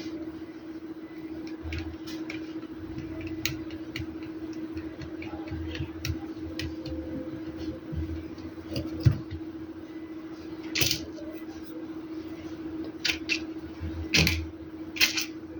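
Scattered small clicks and a few short scraping or rustling sounds, as of small objects being handled, over a steady hum.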